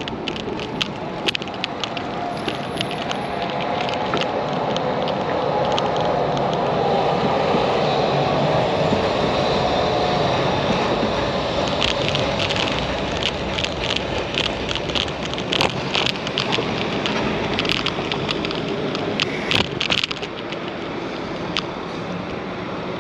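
A city tram passing close on street rails: its running noise builds over several seconds, then a run of sharp clicks and rattles comes as it goes by.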